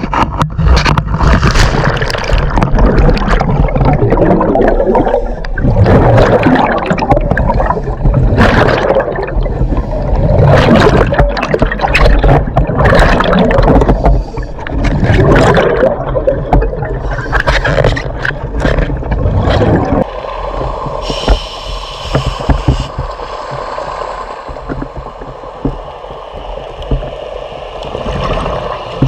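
Scuba diver's exhaled bubbles rushing and gurgling underwater, in loud surges every two or three seconds, easing to a quieter steady hiss after about twenty seconds.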